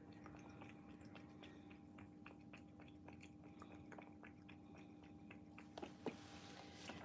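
Cat lapping a creamy white food from a saucer: faint, quick wet tongue clicks, several a second.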